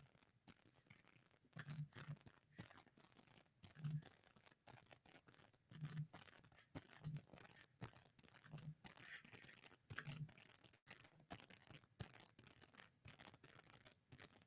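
Near silence: quiet room tone with faint, scattered short clicks and small noises.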